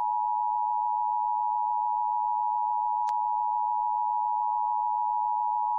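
Emergency Alert System attention signal: a steady two-tone sound of 853 Hz and 960 Hz played together, the tone that precedes emergency messages and here marks a test of the system. A brief click sounds about three seconds in.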